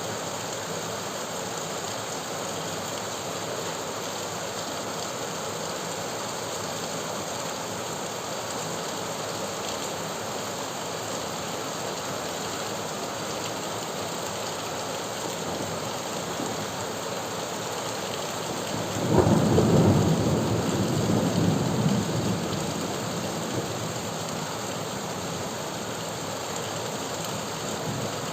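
Steady rain falling, with one rumble of thunder about two-thirds of the way through that swells suddenly and fades over a few seconds.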